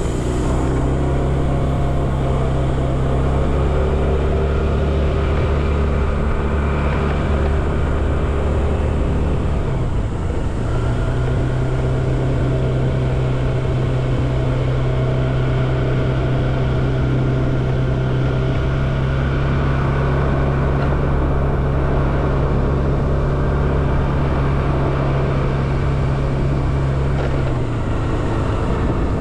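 A vehicle engine running at a steady speed while on the move, with a shift in its pitch about ten seconds in and again near the end.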